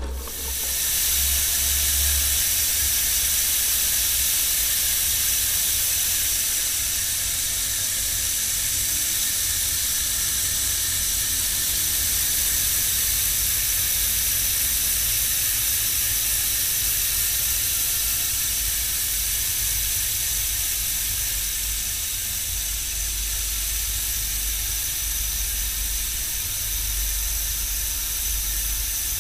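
Novatec Factor rear hub with 120 engagement clicks, its freehub ratcheting so fast while the wheel coasts that it makes a steady, even buzzing hiss rather than separate clicks. The wheel is spinning freely and keeps going without slowing much.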